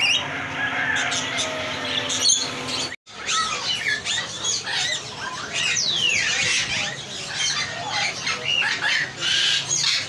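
Many caged birds calling at once, mostly harsh parrot squawks mixed with quick chirps and rising and falling whistles. The sound drops out for an instant about three seconds in, then the calling carries on as densely as before.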